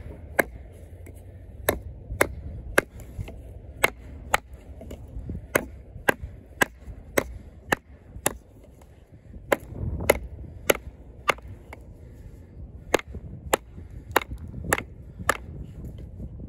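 A 420HC steel fixed-blade clip point hunting knife chopping into a small piece of hard wood, with sharp strikes about two a second and a short pause a little past halfway.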